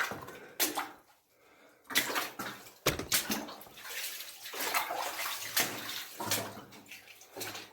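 Water splashing and sloshing underfoot in irregular strokes, as boots wade through shallow water in a flooded mine passage.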